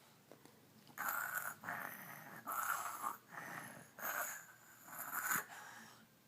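A child's pretend snoring: a run of about six noisy, rasping breaths in and out. It starts about a second in, each breath lasting roughly half a second.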